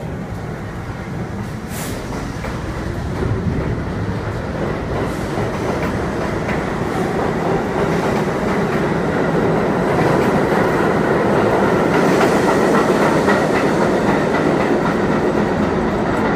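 New York City Subway J train, stainless-steel cars, pulling out of the station and gathering speed past the platform: a running rumble with the wheels clicking over the rail joints, growing louder as the train speeds up.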